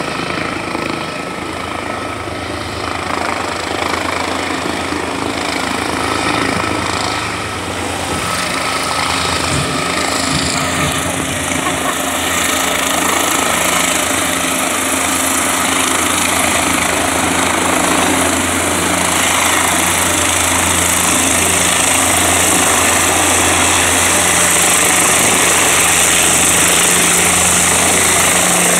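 Small helicopter descending to land, its rotor chop and engine getting steadily louder as it comes down close by.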